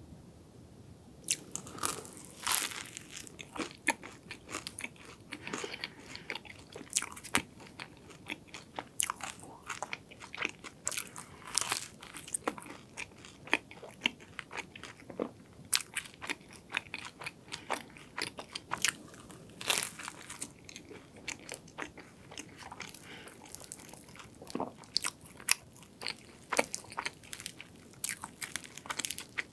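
Crunching and chewing of croffles, crisp croissant-waffle pastry, with many sharp crackles of the crust at each bite.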